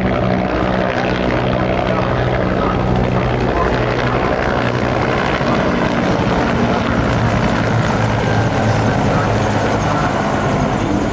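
Two Bell military helicopters flying past overhead: a steady low rotor-and-engine drone that holds throughout.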